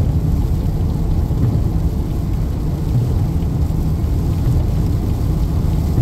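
Steady low rumble of a car driving on a rain-soaked highway, heard inside the cabin: tyre and road noise on wet pavement mixed with rain on the car.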